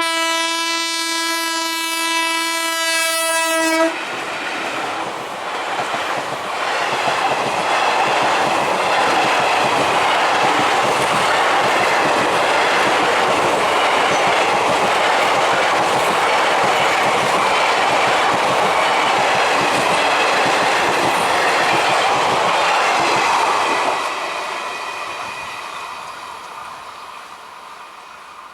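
Indian Railways electric train sounding one long, steady horn blast that cuts off about four seconds in. The train then runs past with wheels clattering over the rails for some twenty seconds, and the sound dies away over the last few seconds.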